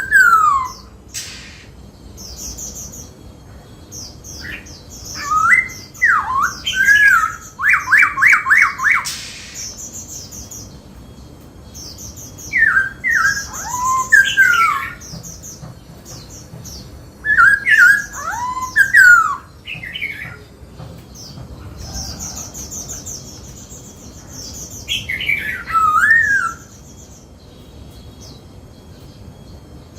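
Black-throated laughingthrush singing: about five loud phrases of whistled, gliding notes with higher chattering notes mixed in, separated by short pauses, one phrase ending in a quick run of repeated notes.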